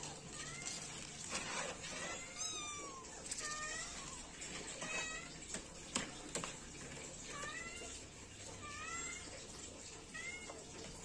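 Several young kittens meowing over and over, short high calls that rise and fall, sometimes overlapping, as they call for their mother. A single sharp click comes about six seconds in.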